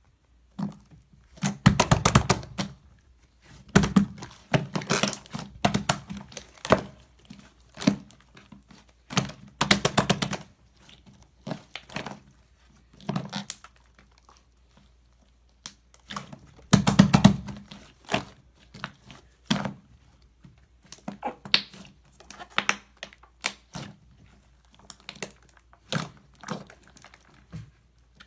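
Slime being kneaded and mixed by hand: repeated bursts of sticky clicking and popping, each a second or two long, with short pauses between.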